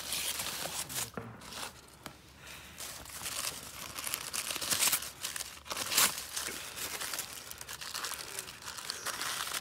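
Aluminium foil and greaseproof baking paper crinkling and tearing in irregular crackles as they are pulled open by hand and slit with a knife, with a few sharper crackles about five to six seconds in.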